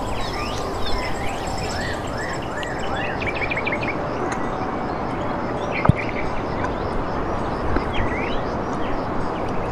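Wild birds calling: a run of rising whistled notes about two seconds in, quick chirps around three seconds, and another short call near the eight-second mark, over steady outdoor background noise. One sharp click about six seconds in.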